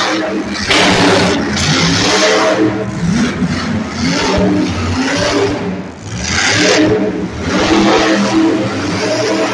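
Monster truck engine revving hard, its pitch rising and falling several times as the truck drives over a pile of crushed cars.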